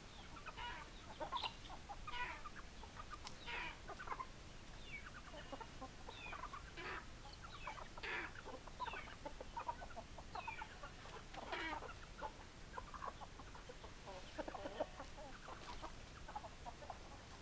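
A flock of chickens clucking: many short, overlapping hen calls in an irregular stream.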